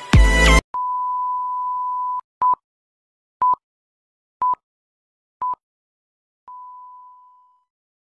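Film-leader countdown beeps: one long steady beep, then four short beeps a second apart, then a last, longer beep that fades out. A burst of electronic music cuts off just before them.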